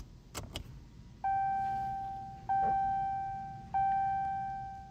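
Two quick clicks from a 2019 Dodge Charger's push-button start switch, then, about a second in, the car's warning chime: a single clear tone that sounds and fades away, repeating about every second and a quarter, three times in all. The ignition is on in the run position with the engine not running.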